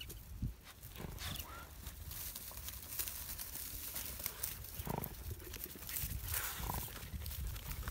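Several dogs sniffing and scrabbling in a pile of dry earth clods while hunting a mouse, with scattered crunching and rustling. A few short animal cries come about a second and a half in, and again around five and seven seconds.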